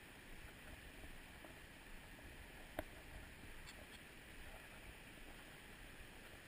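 Faint, steady rush of the swollen, flooding river, with one sharp click a little under three seconds in.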